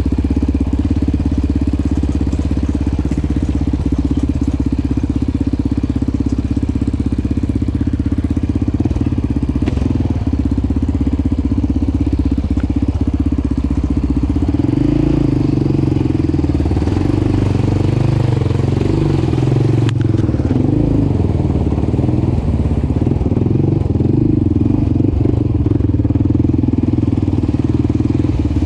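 Yamaha Raptor 700 quad's single-cylinder four-stroke engine running while riding. The note is steady at first, then rises and falls repeatedly from about halfway through.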